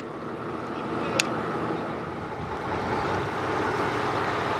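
Fishing boat under way: steady engine noise with water rushing past the hull, growing a little louder about three seconds in. A short sharp click about a second in.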